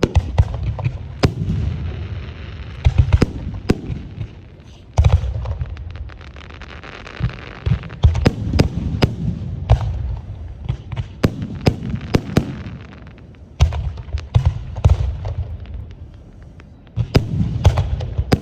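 Aerial fireworks display: shells bursting with deep booms and sharp bangs in quick clusters, with stretches of crackling between them and a short lull near the end before another volley.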